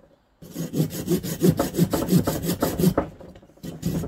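Small folding hand saw cutting through a split log in quick rasping back-and-forth strokes, about five a second. The strokes stop briefly just after the start and again for under a second about three seconds in, then carry on.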